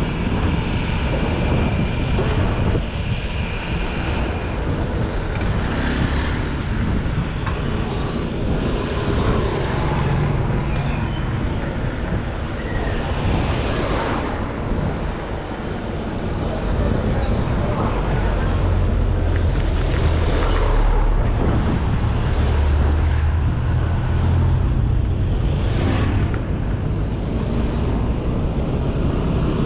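Bicycle tyres rolling over a road surface, a steady rushing noise with a deep rumble that grows heavier in the second half, and a few small knocks from bumps.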